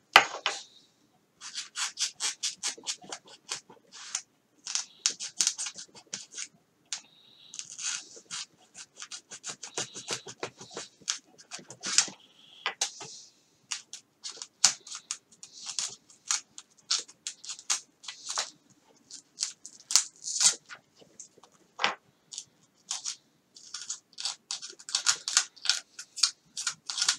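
A blade cutting and scraping into the foam of a flying wing's nose: many short scratchy strokes in quick runs, with brief pauses between them.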